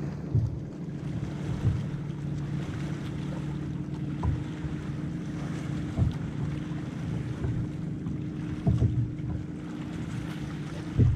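Wind on the microphone and small waves lapping against a plastic kayak hull, with a steady low hum underneath and a few soft knocks scattered through.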